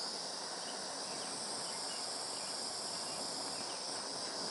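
Handheld torch flame hissing steadily as it heats a lump of solder paste, a constant high-pitched hiss.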